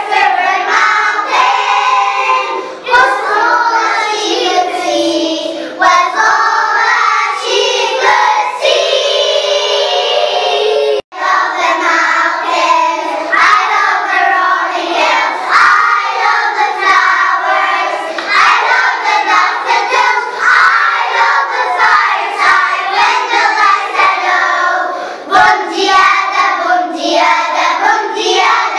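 A choir of young preschool children singing a song in English together, with one brief break about eleven seconds in.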